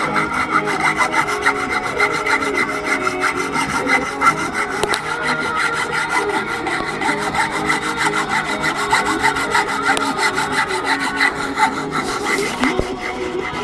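Hand saw cutting through bone for a knife handle, a steady rasping of the blade stroking back and forth in the kerf.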